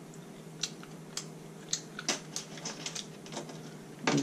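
King crab leg shell being picked apart by hand: scattered sharp clicks and crackles that come faster in the second half, with a louder crack near the end.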